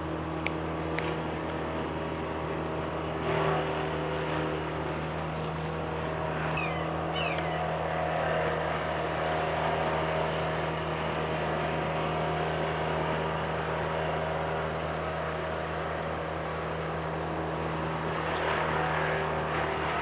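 A steady mechanical hum made up of several constant tones, with a few faint clicks and a brief high chirp about seven seconds in.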